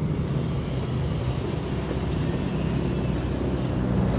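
A motor vehicle's engine running steadily with road noise, heard from on board while moving.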